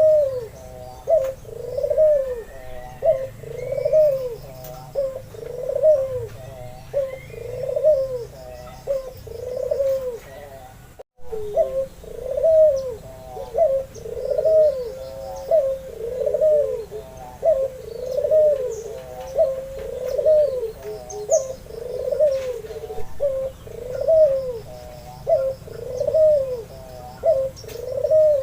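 Albino white Barbary dove (puter) cooing over and over, one low coo about every second and a quarter. Faint chirps from small birds sit in the background early on, and the sound cuts out for a moment about a third of the way through.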